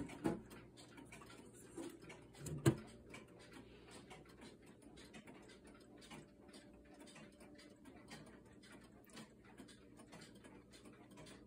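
Weight-driven Seth Thomas lyre movement ticking steadily and evenly, in beat. A few louder knocks come in the first three seconds, the loudest about two and a half seconds in.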